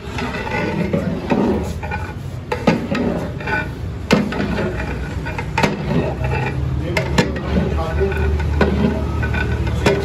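A metal ladle stirring thick custard and ice cream in an aluminium pot, clinking sharply against the metal at irregular moments, with voices in the background.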